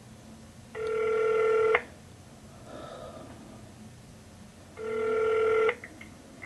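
Telephone ringback tone of an outgoing call: two steady rings, each about a second long and about four seconds apart, while the line waits to be answered.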